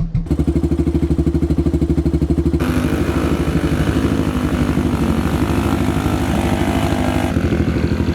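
Kawasaki KLX110 pit bikes' small single-cylinder four-stroke engines idling steadily, warming up before a ride. The sound grows fuller about two and a half seconds in.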